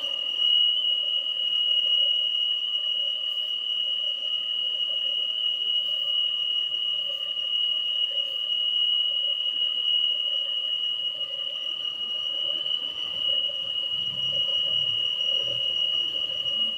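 Peugeot 408 engine running with a steady, high-pitched whine that sounds like a worn pulley bearing, though the mechanic traces the noise to the valve cover.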